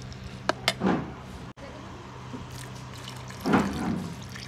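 A steel ladle clicks twice against an iron kadhai while stirring sev. About three and a half seconds in, a thin liquid is poured from a mixer-grinder jar into the hot pan, splashing and gurgling.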